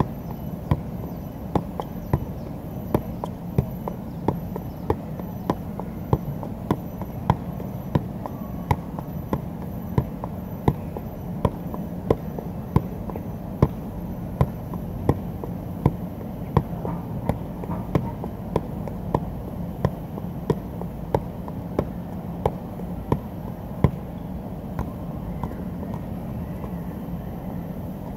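Soccer ball being juggled on the foot, each touch a sharp thump about every 0.7 seconds in a steady rhythm, over a constant low background hum. The regular thumps stop about three-quarters of the way through.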